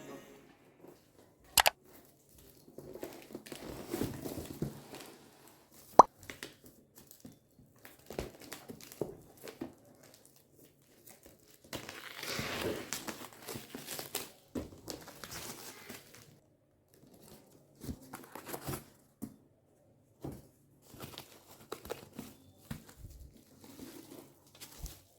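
Small handling sounds in a small room: scattered sharp clicks and knocks, one loud knock about six seconds in, mixed with stretches of crinkling and tearing of packaging.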